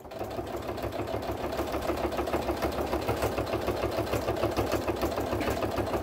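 Electric sewing machine running steadily at a rapid, even stitch rate, stitching through sew-on Velcro tape and cotton fabric.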